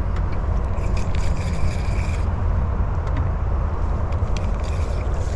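Steady low rumble, with light clicks and rattles from a spinning reel being cranked as a small bluegill is reeled in.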